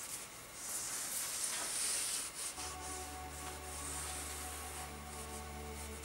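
Scraping and rubbing strokes of a hand tool working the edge of a white polystyrene or plaster slab, short and irregular with a hissing, rasping edge. Low steady music notes come in underneath about two and a half seconds in.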